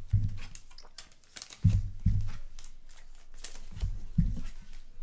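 Trading cards being handled on a table: rustling, crinkling and light scraping, with several short, soft thumps spread through.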